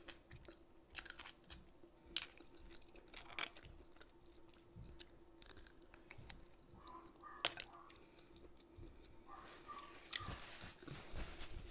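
Quiet close-miked chewing and mouth sounds of someone eating pasta with clams, with scattered short clicks over a faint steady hum.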